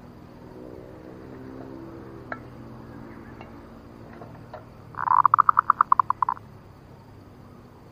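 Zebra dove (perkutut) lure call, clear and sharp: a rapid run of about a dozen staccato cooing notes lasting just over a second, starting about five seconds in. It is the call used to provoke and draw in territorial male zebra doves.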